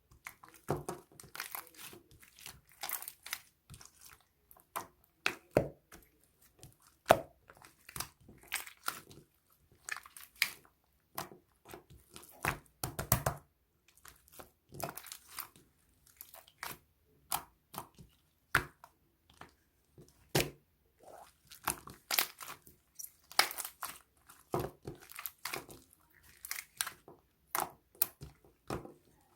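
Slime being squeezed, stretched and poked, giving a steady run of irregular crackles, pops and squelches.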